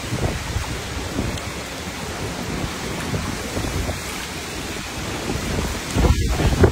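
Hurricane wind buffeting a phone microphone, with heavy rain and churning floodwater. The noise is steady and deep-toned, and it grows louder about six seconds in.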